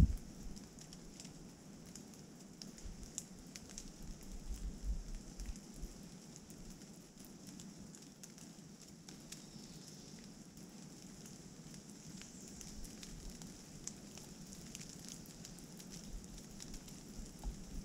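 Light rain and water dripping from the trees: a faint steady hiss with scattered small ticks of falling drops.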